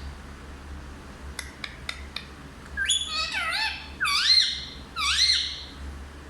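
Parrot vocalising: a few short clicks, then a run of three or four loud calls, each rising and falling in pitch.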